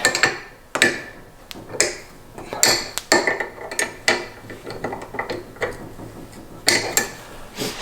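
Flare nut wrench clinking and scraping on the brake line fittings of an AP Racing brake caliper, as a handful of sharp metal knocks at uneven intervals.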